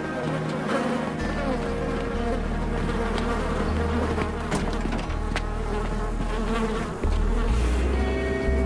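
Swarm of flies buzzing densely and steadily, over a low drone that grows louder about seven seconds in.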